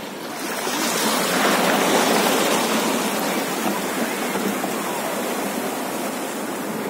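Water rushing and splashing along the hull of a moving boat, a steady hiss of churning spray that grows louder about a second in.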